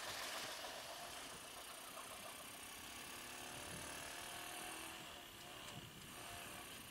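Small single-cylinder monkey-bike engine running faintly while riding, with steady road and wind noise.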